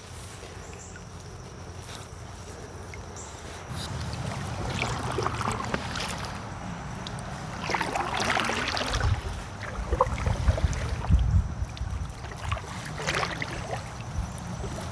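Kayak paddling: several paddle strokes swishing and splashing in the river water over a low rumble of wind on the microphone. The rumble grows louder about four seconds in.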